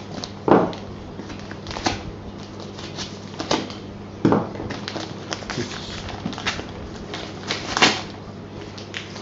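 Packaging being handled on a wooden desk: a small cardboard box turned over in the hands and a plastic-bagged item picked up, giving scattered sharp knocks and taps with light rustling. A low steady hum sits underneath.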